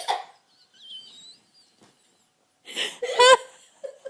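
Hiccups: a sharp voiced 'hic' with a click at its catch, about three seconds in, breaking into a brief squeaky giggle, after the tail of another hiccup at the start. Between them it is nearly quiet but for a faint high warble.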